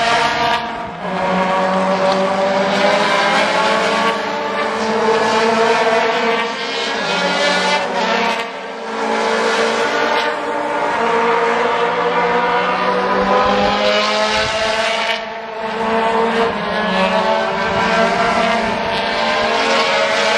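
Race cars with 750 cc motorcycle engines running hard at high revs, the engine note climbing steadily and dropping sharply three times, about one, eight and fifteen seconds in, as the cars change up through the gears.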